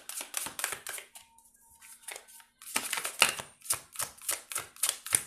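A deck of oracle cards being shuffled by hand: rapid, dry clicks of cards flicking against each other. The clicks stop for about a second and a half about a second in, then start again.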